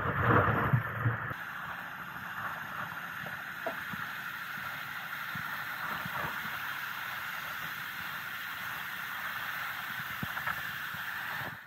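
Water rushing and splashing out of a flooded pickup truck's open door and body as the truck is pulled up out of the water, a steady gushing hiss.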